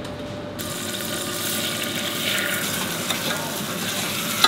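Rice grains sizzling in hot fat in a stainless-steel saucepan as they are stirred with a wooden spoon, toasting at the start of a risotto. It is a steady frying hiss with small crackles, and it starts abruptly about half a second in.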